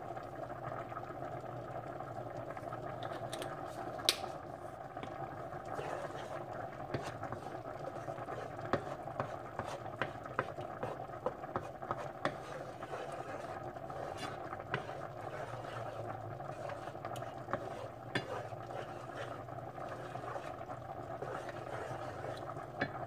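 A spoon stirring pasta and Alfredo sauce in a pot, with scattered sharp clicks and scrapes of the utensil against the pot over a steady low hum.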